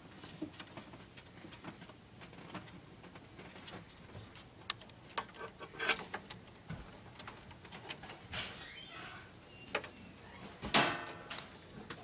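Small clicks, taps and rustles of wires and plastic connectors being handled and routed inside a desktop computer's metal case, with a louder burst of handling noise near the end.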